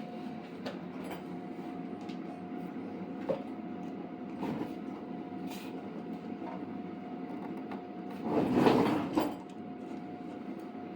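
Hand assembly of CNC machine parts: light clicks and taps of small metal parts being handled over a steady background hum, with a louder scrape or clatter about eight and a half seconds in.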